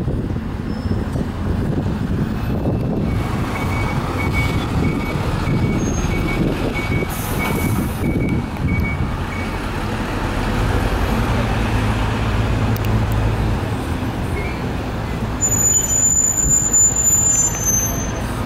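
Isuzu Erga Type-B non-step city bus (KL-LV834N1) running past at low speed, its engine a steady low rumble. A regular beeping at about two per second sounds for several seconds in the middle, and a high brake squeal comes near the end as the bus slows to a stop.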